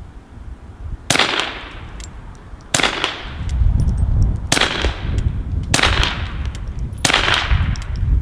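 Integrally suppressed Ruger MK II .22 LR semi-automatic pistol fired five times at a slow, even pace, about one shot every one and a half seconds. Each shot is a sharp crack that trails off in an echo, with lighter ticks after some of them.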